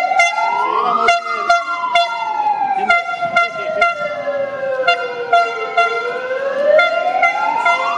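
A siren wailing. Its pitch rises to a peak about a second in, falls slowly over the next five seconds and rises again near the end. Steady-pitched horn toots start and stop over it, and there are several sharp cracks.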